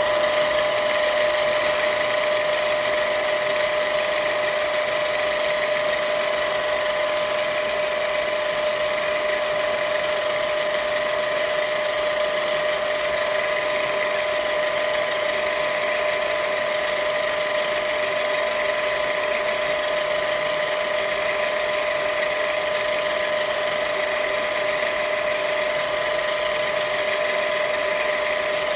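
Myford VMA milling machine's motor and spindle switched on and running steadily, with an even whine.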